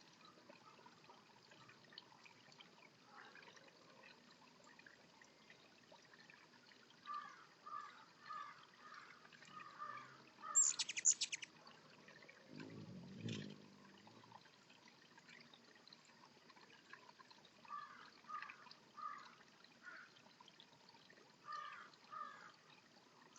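Small birds chirping in short runs of notes, with a louder quick burst of high notes about eleven seconds in and a brief low sound just after. Faint trickling water runs underneath.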